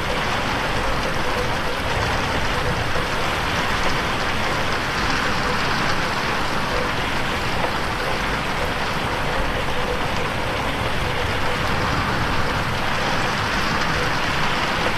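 Steady heavy rain pattering on a window pane, an even, continuous hiss of drops.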